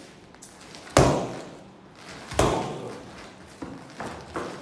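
Boxing-gloved hooks smacking into Fairtex focus mitts: two hard hits about a second and a half apart, each followed by a short echo in the room, then two lighter taps near the end.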